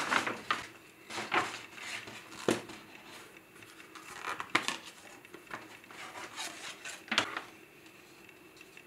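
Stiff brown kraft paper rustling and crinkling in several short bursts, a second or two apart, as a wrapped carving axe is unwrapped and handled and its leather sheath is slipped off. The bursts thin out near the end.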